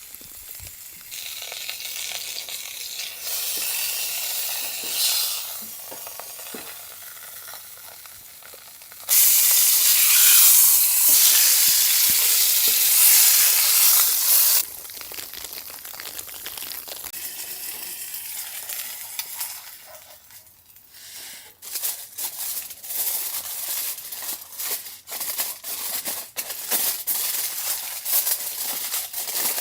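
Food sizzling in a hot pan, a steady high hiss that jumps much louder for about five seconds in the middle and cuts back down abruptly, followed by scattered sharp crackles and clicks.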